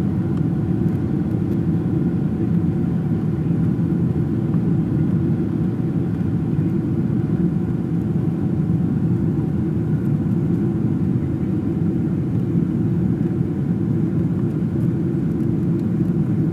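Airliner cabin noise while descending: the engines and rushing air make a steady, unbroken low rumble, with a faint steady whine above it.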